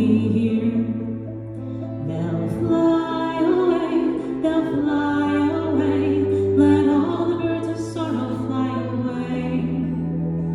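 Instrumental passage of a song: a wavering melody line over sustained bass notes that change every two seconds or so.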